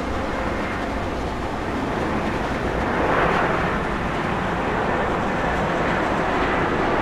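Jet engine noise from an Airbus A220-300's Pratt & Whitney PW1500G geared turbofans, a steady rushing sound that swells a little about three seconds in.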